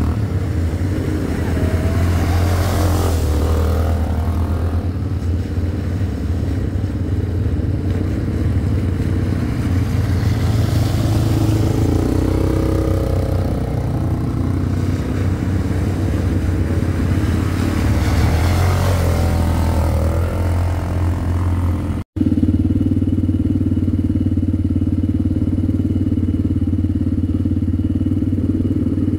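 Motor vehicle engine running with a steady low drone, with rushes of passing traffic swelling and fading every several seconds. The sound cuts out briefly about three-quarters of the way through, then the drone goes on, steadier and with a higher hum.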